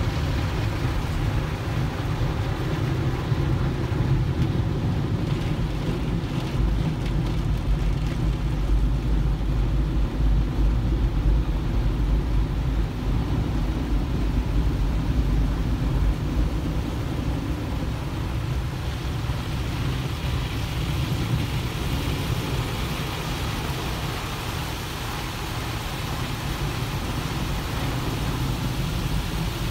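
Automatic car wash heard from inside the car's cabin: water spray beating on the windshield and body over a steady low rumble, with the hiss of the spray growing a little brighter about two-thirds of the way through.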